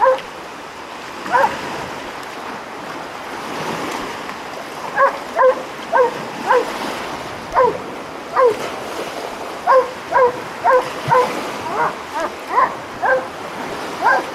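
A dog barking repeatedly: short, sharp barks in irregular runs, with a lull of about three seconds near the start, then barking every half second to a second. Small waves wash against the rocky shore underneath.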